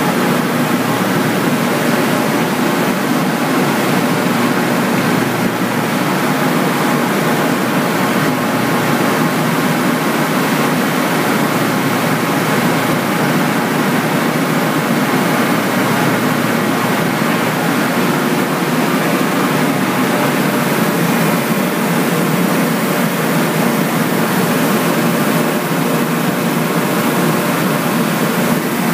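Steady, loud industrial plant noise: an even, unbroken noise with a faint steady hum and no change in level.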